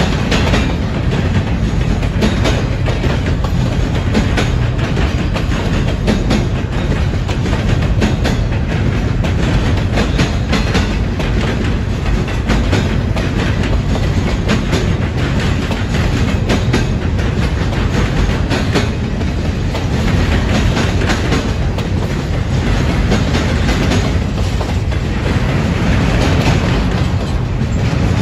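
CSX double-stack container train of well cars rolling past at steady speed: a steady, loud rumble of steel wheels on rail, with frequent clicks as the wheels run over the track.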